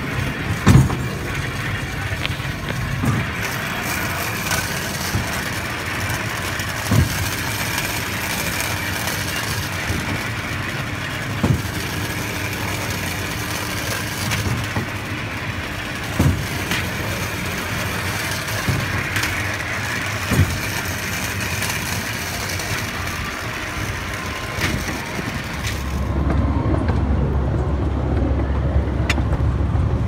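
Miniature railway train running along its track, a steady rumble with occasional short knocks every few seconds. About 26 seconds in the rumble grows louder and deeper.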